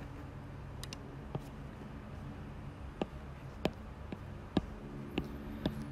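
Stylus tapping on an iPad's glass screen: about seven sharp, irregular ticks over a faint low steady hum.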